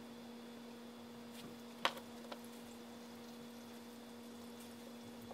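Precise Super 60 high-speed electric grinder running at a steady speed with a steady low hum. A sharp click comes about two seconds in, then a fainter one.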